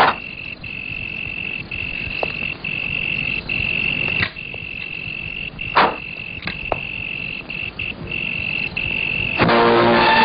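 Crickets trilling in one steady high tone with brief breaks, with a few sharp clicks over it. Film music comes in loudly about nine seconds in.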